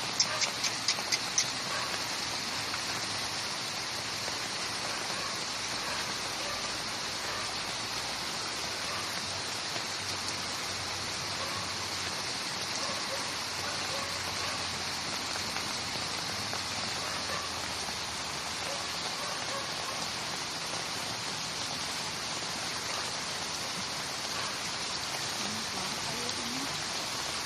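Steady rush of water, an even hiss throughout. A quick run of about five sharp ticks comes right at the start.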